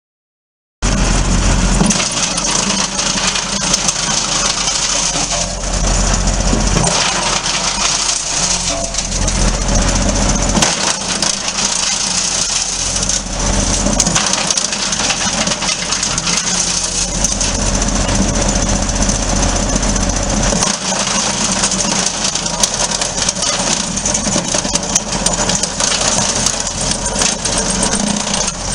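Tractor-driven drum wood chipper running steadily with the tractor engine, thick with constant metallic clicking and rattling. It starts abruptly about a second in.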